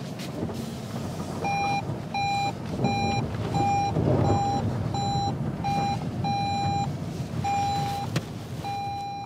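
A car's electronic warning beeper in the cabin, sounding a run of short single-pitch beeps about two a second, the last few held a little longer, over a low cabin rumble.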